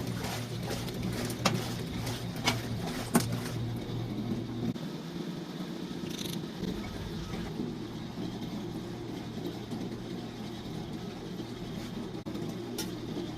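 Antique wringer washing machine running: a steady motor and gear hum, with a few sharp clicks in the first three seconds.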